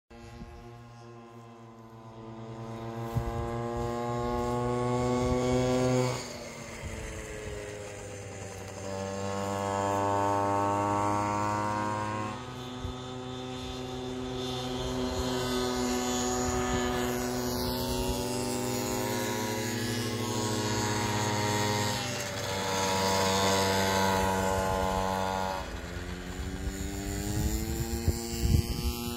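Motorcycle engine revving hard around a track, its pitch climbing and then dropping suddenly several times as the rider shifts or closes the throttle. It swells loud as the bike comes near and fades as it moves away.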